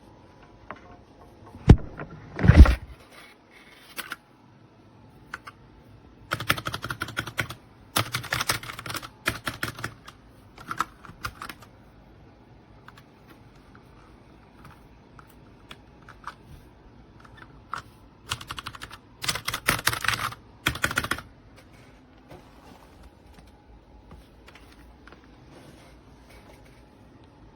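Typing on an RK Royal Kludge RK61 60% mechanical keyboard: bursts of rapid key clicks with pauses between, after two loud knocks near the start.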